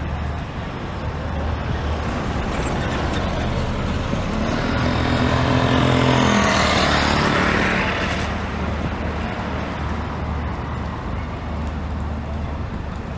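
A motor vehicle driving past close by on a city street: its engine and tyre noise grow to a peak about six seconds in and then fade, over a steady low hum of street traffic.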